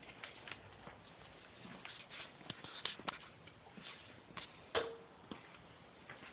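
Light, irregular clicks and taps of a kitten's paws and claws on a ceramic tile floor as it runs and pounces, with one louder knock about three-quarters of the way through.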